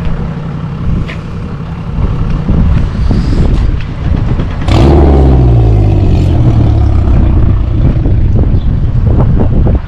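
A vehicle engine running with a low, steady drone. About halfway there is a sharp knock, then the engine revs and falls back in pitch, settling to a louder, deeper drone.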